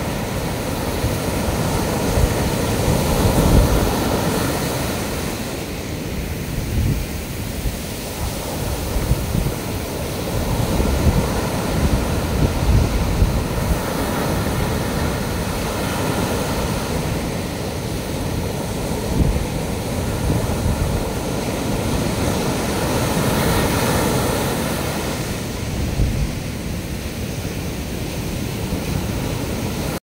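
Rough-sea surf: large waves breaking and washing up a sand beach in a continuous roar that swells and eases as each set comes in. Wind buffets the microphone with a low rumble.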